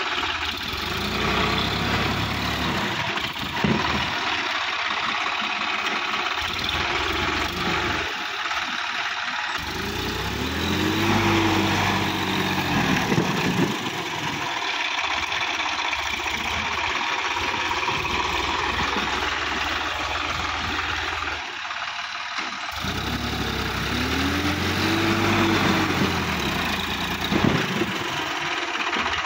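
Sonalika DI-50 RX tractor's diesel engine running as the tractor churns through deep mud. It revs up and back down twice, about ten seconds in and again about twenty-three seconds in.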